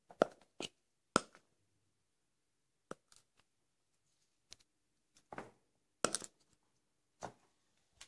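Irregular sharp taps and knocks of a plastic aerosol-can cap pressed against a painted wall to crush cockroaches. The two loudest come in the first second and a half, with quiet gaps between the later ones.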